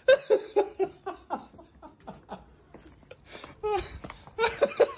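A person laughing in quick short bursts, mixed with a few spoken words.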